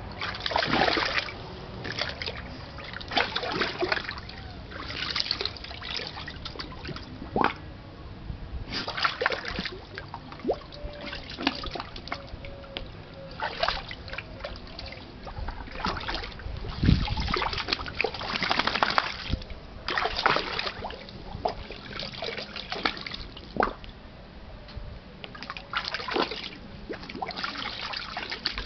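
A pit bull-type dog splashing water in a pool as she plays with a Kong toy, in irregular splashes every second or two with water trickling in between.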